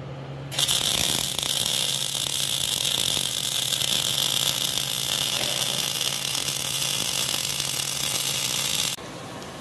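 MIG welding arc crackling steadily as one bead is run on a steel pipe post. It starts about half a second in and cuts off abruptly near the end, over a low steady hum.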